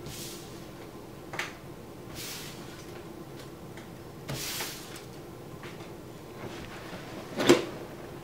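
Handling sounds of a bag and bundled cash on a wooden table: rustles, scuffs and soft clicks, with one sharp knock about seven and a half seconds in, the loudest sound, over a faint steady hum.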